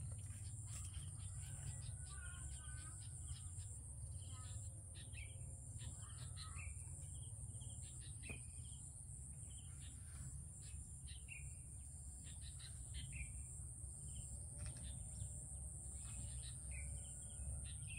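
Outdoor ambience: scattered bird chirps over a steady high-pitched drone and a low rumble.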